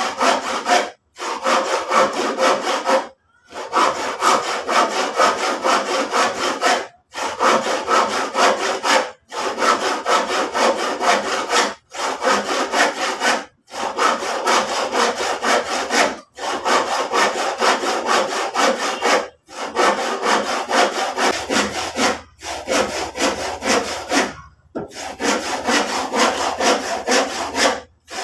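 Handsaw cutting through a wooden board in quick back-and-forth strokes, several a second, in runs of a few seconds broken by brief pauses.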